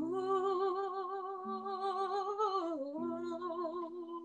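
Woman singing, holding a long note with vibrato that steps down to a lower note about three seconds in. Backing music holds steady, sustained notes underneath.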